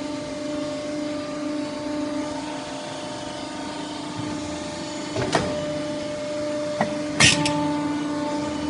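CNC pipe bending machine running with a steady hum. A sharp clack comes about five seconds in, a light click follows, and a louder double clack comes near the end.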